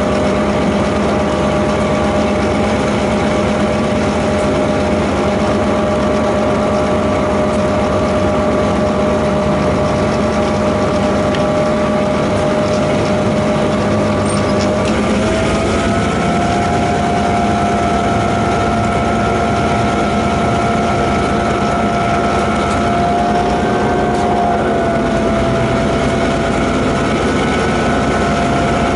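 DQ class diesel-electric locomotive running while hauling a loaded ore train, heard from the front of the locomotive: a steady engine drone with a whine that steps up in pitch about halfway through, rises briefly a little later, then settles.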